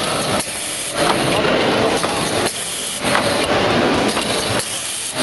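Automatic screw-tightening machine running in cycles: stretches of mechanical noise about a second and a half long, broken by short quieter pauses.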